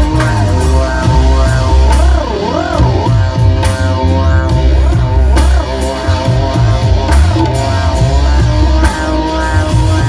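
Live band music played loud: electric bass guitars, keyboards and a drum beat, with a melody line that slides up and down in pitch.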